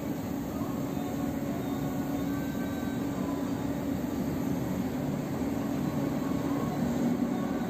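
Steady low mechanical drone with a hum around a low-mid pitch and a constant noisy rumble, unchanging throughout, with no distinct clicks or knocks.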